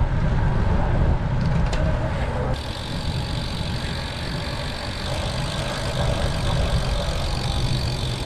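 Wind rushing over a bike-mounted action camera's microphone as a road bike rolls along at speed: a steady low rumble with hiss above it. The high hiss steps up about two and a half seconds in.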